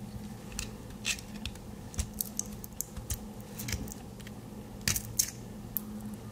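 Scattered small clicks and taps from a Victorinox Swiss Army Knife being handled, its metal tools and parts knocking lightly together, the two loudest about five seconds in. A faint low hum runs underneath.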